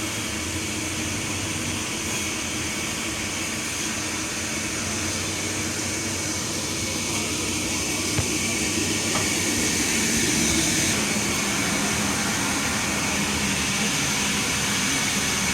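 Sawmill machinery running steadily, getting somewhat louder about halfway through, with a single sharp tick near the middle.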